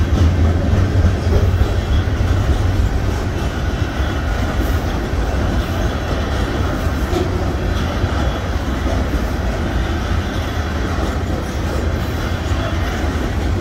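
Union Pacific freight train's cars rolling past: a steady, loud, low rumble of steel wheels on rail with some clickety-clack, a little louder in the first couple of seconds.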